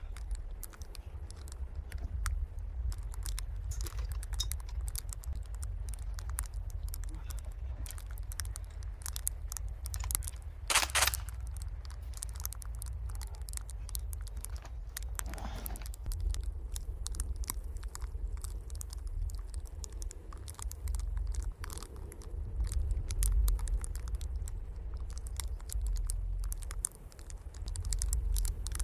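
Irregular crackling and crunching, from a burning wooden pallet and from footsteps and gear handling in snow, over a steady low rumble. A brief louder noise comes about eleven seconds in.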